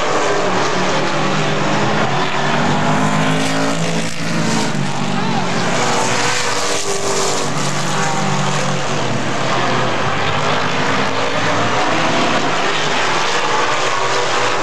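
A field of super late model stock cars running on the oval, their V8 engines at high revs overlapping, with cars passing by in turn so that the engine pitch rises and falls, most clearly about four and seven seconds in.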